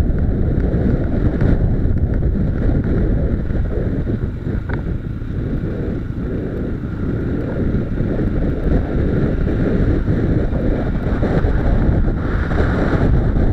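Heavy wind buffeting on the microphone of a motorcycle-mounted camera while riding a gravel track, with the bike's running and the tyres' rumble mixed into a steady low roar. It eases slightly about halfway through.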